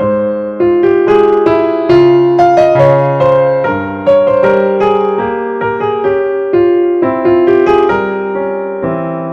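Background piano music: single notes and chords struck in a steady, unhurried rhythm, each fading after it is played.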